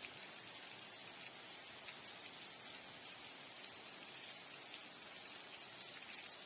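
Faint, steady rainfall: an even hiss with a few scattered light drop ticks.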